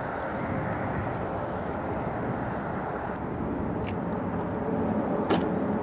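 Steady rumble of road traffic on the bridge overhead, with two short clicks near the end.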